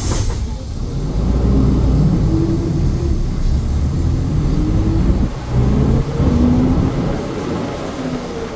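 City bus engine accelerating, heard from inside the bus. Its pitch climbs, breaks off briefly at a gear change a little over five seconds in, then climbs again.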